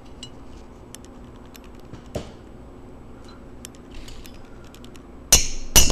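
Faint small clicks of a steel ring and punch being handled and set on a drilled bolt in an anvil's hardy hole. Then, about five seconds in, two loud hammer blows on the steel punch, each ringing out metallically, punching a rivet hole through the ring's flattened tab.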